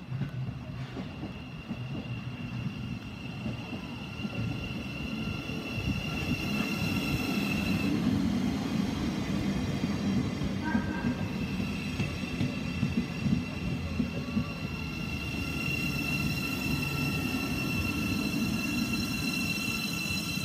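Great Northern Class 717 electric multiple unit arriving along the platform. Its wheels rumble on the rails and a steady high whine from its electric traction equipment sounds over them. The rumble grows louder as the train draws alongside, loudest from about a third of the way in to past the middle.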